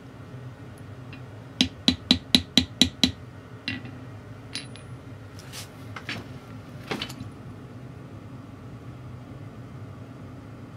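Brass mallet tapping a steel dapping punch into a slice of metal tubing on an anvil to flare its ends: seven quick, sharp strikes about two seconds in, followed by a few lighter clinks as the punch and the piece are set down and handled.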